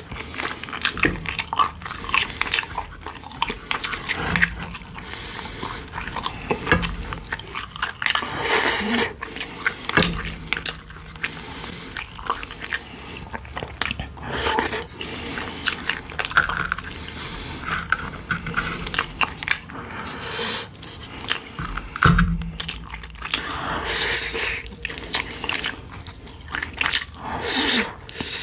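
Close-miked eating of pork-bone soup (gamjatang): continuous chewing and biting with many irregular small clicks and mouth smacks.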